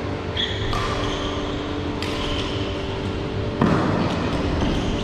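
Badminton rally: sharp racket strikes on the shuttlecock, the loudest about three and a half seconds in, mixed with brief high squeaks of court shoes on the mat, over a steady low hum.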